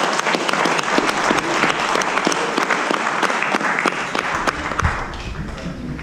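Small audience applauding after a performance, a dense patter of hand claps that dies away about five seconds in.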